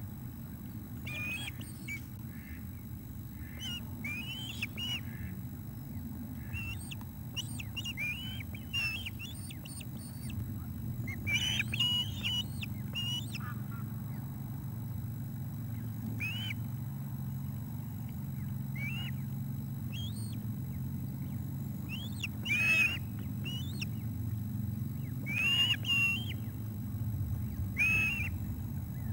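Ospreys on the nest calling during a fish feed: repeated short, high whistled chirps in scattered bouts, loudest in the second half.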